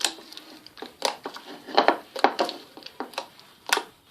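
Glue-and-borax slime being kneaded by hand, giving irregular sharp wet clicks and squishes, about two a second.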